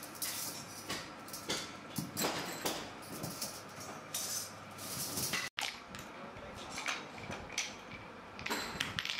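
Steel coil springs clinking and rattling against each other as they are handled and stacked. After a cut, sharp metal taps of a hammer on a steel block follow.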